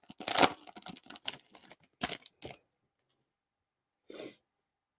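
Baseball trading cards and foil pack wrappers being handled: a quick run of rustling and small clicks as cards are flipped through, then a pause and one brief rustle about four seconds in.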